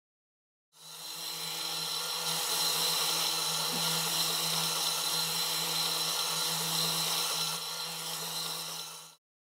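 Small LEGO electric motor running steadily, driving the rotating tank's turntable by pressing against the tank wall: a mechanical whine with a high-pitched tone over a low hum. It fades in about a second in and fades out near the end.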